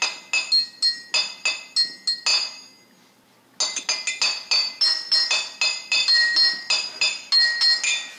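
Intro music of quick, bell-like struck notes, about three a second, each ringing briefly and fading. It pauses for about a second near the middle and cuts off suddenly at the end.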